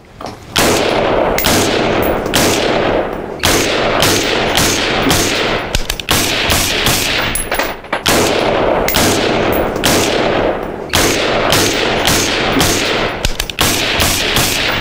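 Suppressed 5.56 AR-15 firing quick strings of shots, mostly about two a second with short pauses, each shot trailing a long echo. The can is a compact YHM .30-caliber suppressor on the smaller .223 round, and the shots do not sound quiet.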